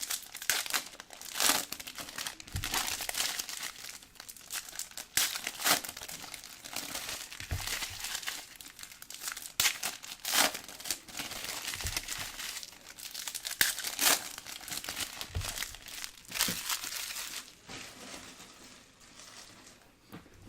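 Foil trading-card pack wrappers crinkling and tearing as packs are ripped open and handled, with sharp crackles for most of it, then quieter near the end.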